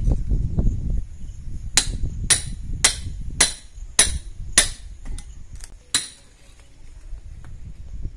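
Hammer striking a steel chisel to chip away brickwork at the edge of a wall opening: eight sharp, ringing metal-on-metal strikes, about two a second, starting a couple of seconds in. A low rumble comes before the strikes.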